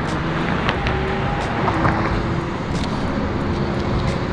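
Steady road traffic noise from passing cars, with a few short clicks over it.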